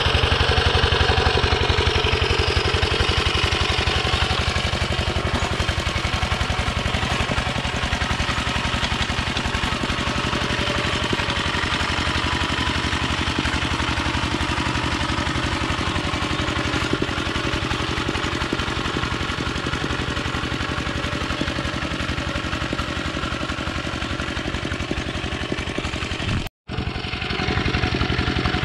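Yanmar two-wheel hand tractor's diesel engine running steadily under load as it pulls a harrow through flooded paddy mud, a fast, even chugging. The sound breaks off for an instant near the end.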